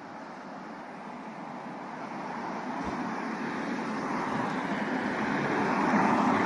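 Cars passing close by on a street: tyre and engine noise that swells steadily and is loudest near the end, as an SUV drives past.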